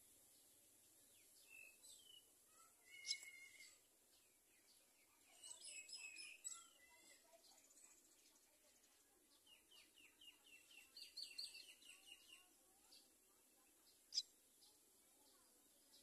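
Faint, high begging chirps from baby common myna nestlings in the nest, coming in several bursts, including a quick run of short notes about two-thirds of the way in. A single sharp click comes near the end.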